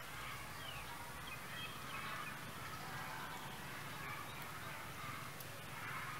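Faint outdoor ambience with scattered short animal chirps and calls.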